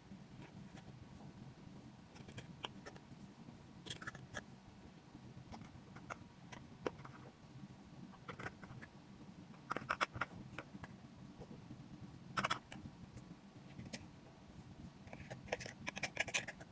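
Slime being squeezed and stretched by hand, giving irregular sticky clicks and small pops. A denser, louder run of crackles comes near the end.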